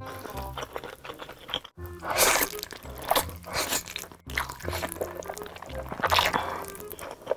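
A person slurping and chewing spicy instant noodles in big mouthfuls, with loud wet slurps about two seconds in, again about three seconds in and near the end, over background music with a steady beat.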